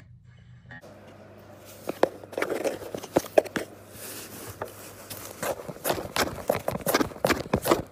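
Irregular scratching, rustling and sharp clicks of a cat moving and pawing against cardboard, starting about a second in.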